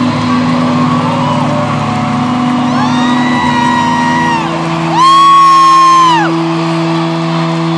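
Arena concert crowd cheering and whooping over steady held notes ringing from the stage. A shorter whoop comes about three seconds in, then a loud, long, high-pitched "woooo" from a fan near the phone a couple of seconds later.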